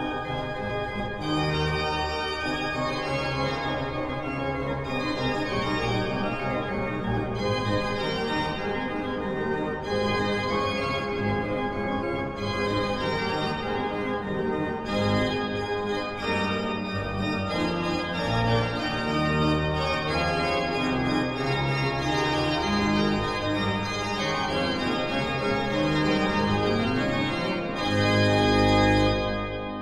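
Organ music: a church organ playing a slow piece of sustained chords. Near the end it closes on a louder held final chord with deep bass notes, which then dies away.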